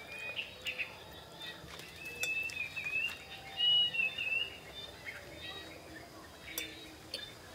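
A bird chirping and whistling in short wavering phrases, loudest around the middle, with a few light clinks of metal spoons against ceramic bowls.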